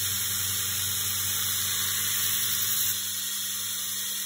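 Belt grinder running while a Kh12MF steel knife blade in a bevel jig is ground on its ceramic belt, just dressed with a diamond pencil so it cuts more aggressively. The grinding stops about three seconds in as the blade is lifted off, and the belt keeps running.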